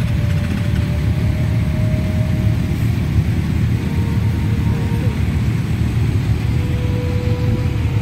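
Several motorcycle engines running together, a steady low rumble with a faint steady whine above it.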